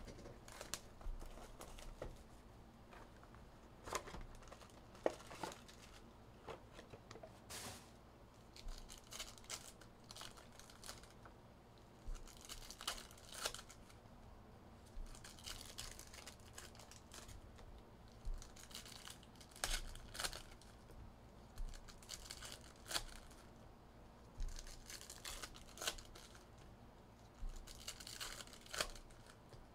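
Faint tearing and crinkling of the plastic wrapping on a hobby box of trading cards and its packs as they are opened, in short scattered bursts every second or two.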